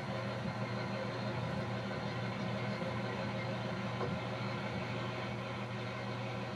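Steady vehicle engine drone with road noise, heard from inside a vehicle driving slowly on a rough dirt road.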